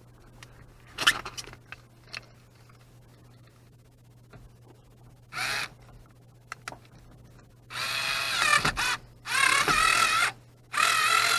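Cordless drill/driver driving a speaker mounting screw through the foam baffle into the door, its motor whining in three long runs starting about eight seconds in, after a few light clicks and a brief blip of the motor near the middle.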